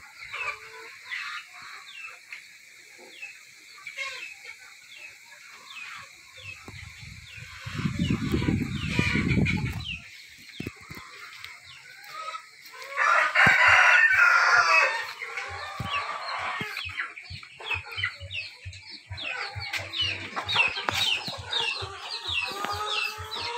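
Heritage-breed chickens clucking and calling throughout, with a rooster crowing once, loudly, for about two seconds just past the middle. A low rumble lasts a few seconds shortly before the crow.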